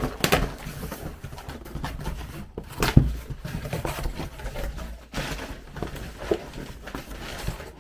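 Cardboard LEGO set boxes being handled and shuffled, with a single loud thump about three seconds in as one is set down.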